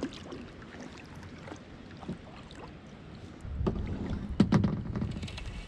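Kayak paddling: the paddle blade dipping and splashing in river water, with small clicks and knocks of the paddle against the plastic kayak. About three and a half seconds in a louder low rumble comes in, with a few sharp knocks a second later as the paddle is handled.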